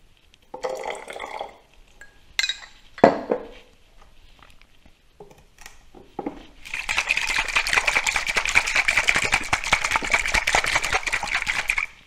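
A spoonful of water poured into a dressing shaker, then two sharp clinks as spoon and lid meet the container, then about five seconds of fast, steady shaking that mixes the sesame dressing.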